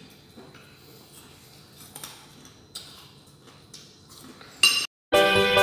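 Spoons clinking and scraping on plates during a meal, a few faint scattered clicks. Near the end there is a short, louder ringing sound, then a sudden silence, and guitar background music starts.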